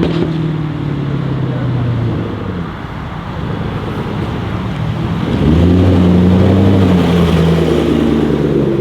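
Jaguar F-Type R's V8 running through a Larini straight-pipe exhaust: a deep, even engine note that eases off after about two and a half seconds, then comes back louder about five and a half seconds in and holds steady.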